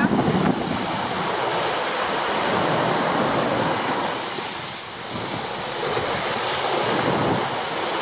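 Small waves breaking and washing up a sandy beach, the surf easing off about halfway through and building again as the next wave comes in.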